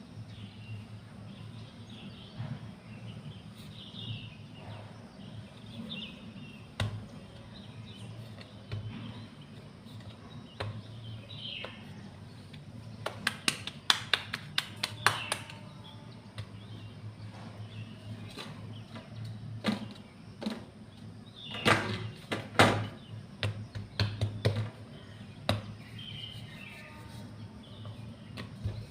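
Scattered clicks and taps of kitchen work, in two busy clusters in the middle and latter part, over a steady low hum, with birds chirping now and then in the background.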